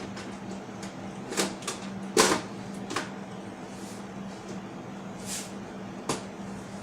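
A handful of sharp clicks and knocks from hard objects being handled, the loudest about two seconds in, over a steady low hum.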